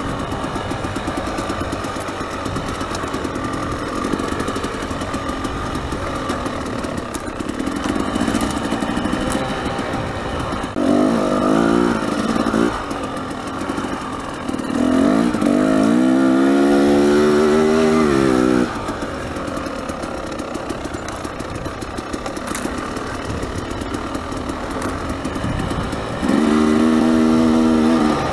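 Dirt bike engine running on a rough trail. The throttle opens up hard three times: briefly about eleven seconds in, longer around fifteen seconds in with the pitch climbing and then dropping, and again near the end.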